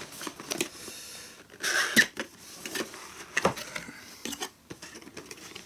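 Cardboard box being torn open along its perforated tear strip and its lid flipped up. A short loud rip comes about two seconds in, among cardboard rustles and light knocks.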